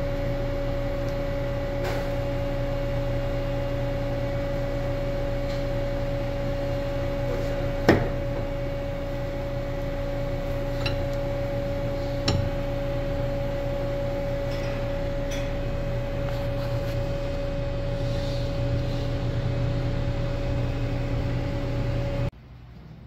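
Steady machine hum, broken by one sharp metallic click about eight seconds in as the arbor press seats a piston pin retainer in a Detroit Diesel 71-series piston, and lighter clicks a few seconds later.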